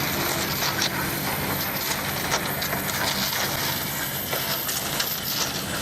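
Steady running noise aboard a large fishing boat: a low engine hum under a rushing hiss of water and wind, with a few faint knocks.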